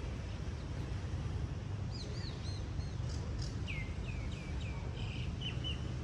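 A small songbird giving a quick series of down-swept chirping notes, starting about two seconds in, first higher-pitched and then a lower run, over a steady low rumble.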